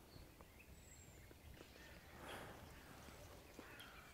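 Near silence: faint outdoor ambience with a few small ticks and a soft rustle about two seconds in.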